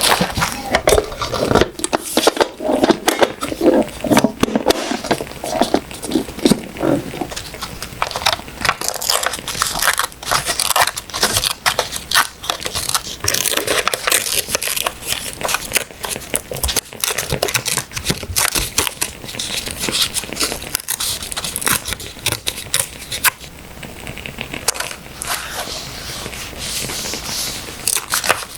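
Close-miked paper being handled: rustling, crinkling and tearing of paper and stickers, thick with small crackles, against the crackle of a wood fire.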